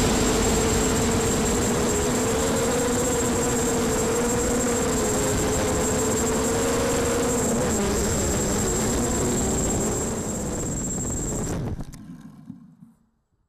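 Mini quadcopter's brushless motors and propellers whining at a steady, slightly wavering pitch over a constant high electronic whine. It drops a little about ten seconds in, then fades out.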